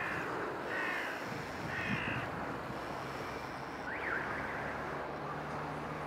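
A crow cawing three times, about a second apart, over a steady hiss of wind and water. A short, sharp bird call follows about four seconds in, and a faint low hum comes in partway through.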